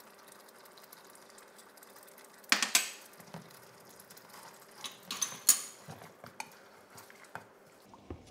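Metal spoon and wooden spatula clinking and knocking against a small bowl and a stainless steel pan while palm sugar is spooned into curry and stirred in. The sharpest clink comes about two and a half seconds in, and a quick cluster of taps follows later, over a faint steady hum.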